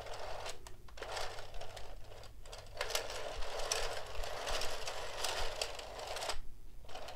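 Plastic parts of an Addi knitting machine clicking and rattling as it is handled, a busy run of small clicks with short breaks.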